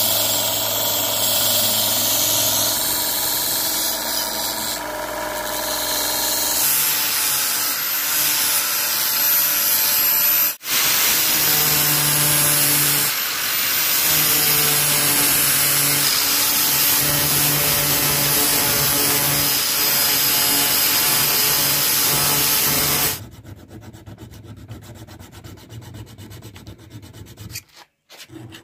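Electric power sanding on a steel pickaxe head: a bench belt sander and an angle grinder with a sanding disc run steadily under load, with a gritty rubbing of abrasive on steel. About 23 seconds in, the noise drops to a much quieter, fast rhythmic ticking.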